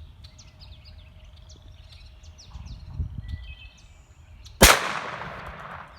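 A single sharp gunshot about four and a half seconds in, with a short echoing tail. Small birds chirp before it over low wind rumble.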